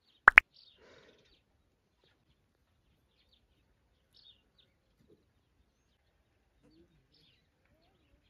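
Faint, scattered short bird chirps. A brief, sharp double sound near the start is the loudest thing heard.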